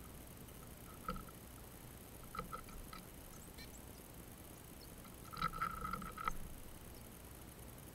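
Blue tits pecking and scrabbling on a wire-cage fat-ball feeder: a few single knocks, then a quick cluster of rattling, ringing knocks about five and a half to six seconds in as a bird flaps onto the cage.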